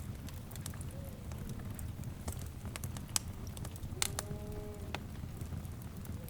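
Wood fire crackling: a steady low rumble of burning with scattered sharp pops and snaps. About four seconds in, a short pitched animal call lasting about a second sounds over the fire.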